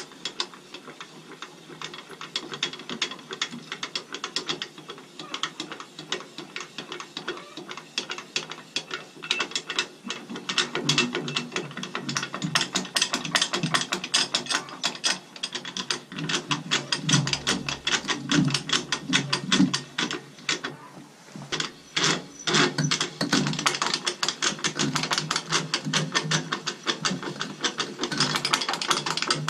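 Tooth-angle adjusting handle on a Belarusian MTZ walk-behind tractor harrow being turned, giving a rapid run of metallic clicks and rattles as the screw and tooth linkage rotate. There is a short pause about two-thirds through before the clicking resumes.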